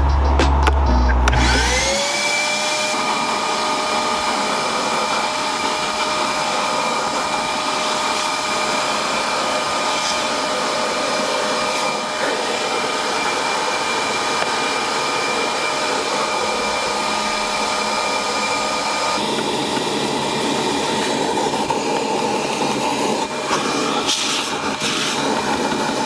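Vacuum cleaner with a brush nozzle, its motor spinning up with a rising whine about two seconds in, then running steadily while the nozzle is worked over the car's interior plastics.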